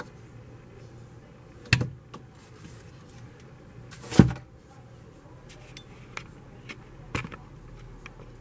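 Handling noises on a tabletop: a few sharp knocks and clicks, the loudest about four seconds in, with smaller clicks between.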